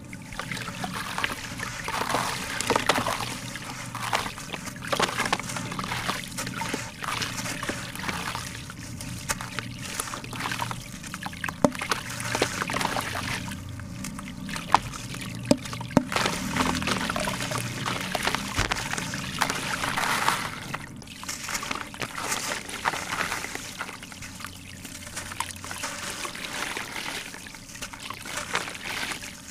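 A block of wet sand-cement mix squeezed and crumbled by hand in a plastic tub of water: water sloshing, trickling and pouring off the hands, with irregular gritty squelches and a few sharp clicks.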